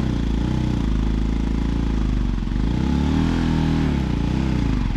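Motorcycle engine running, its pitch rising and falling several times as the throttle is opened and eased off.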